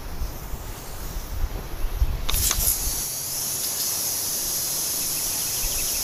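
Aerosol spray can hissing in one long, steady spray onto a sickle bar mower's cutter bar during cleaning, starting a little over two seconds in. Low wind rumble on the microphone before it.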